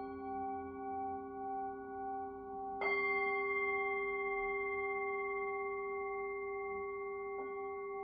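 Tibetan singing bowls struck with a mallet and left ringing: a strike at the very start, a louder one about three seconds in and a light tap near the end, each note ringing on under the next. The overlapping tones waver slowly in the first couple of seconds.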